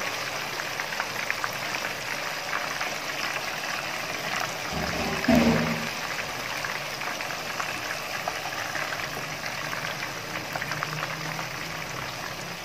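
Minced-meat koftas deep-frying in hot oil in a wide pan: a steady sizzle with fine crackling. About five seconds in, a brief louder sound with a pitch rises above it.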